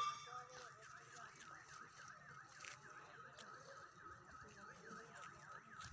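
Faint electronic alarm tone warbling without a break, its pitch dipping and rising about three times a second.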